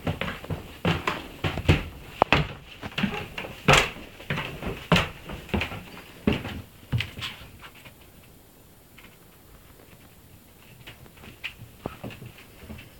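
Irregular knocks and clicks in a small room, several a second for the first six or seven seconds, then sparser and fainter.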